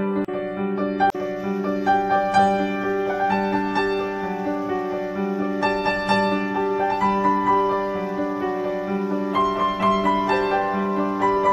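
Background piano music: a slow melody of held notes over repeating low notes, at a steady level.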